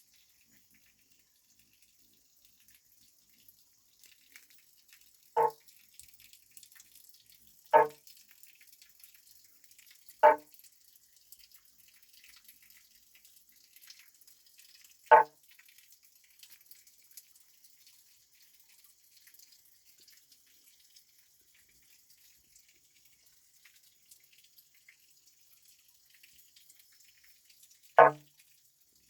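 A frog calling at night: five single short, plopping calls, like a drop falling into water, spaced irregularly with a long gap before the last one, over a faint steady hiss of night background.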